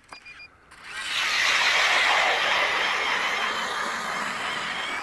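Power ice auger drilling a hole through lake ice: a steady, loud grinding hiss of the blades cutting ice that starts about a second in and keeps running.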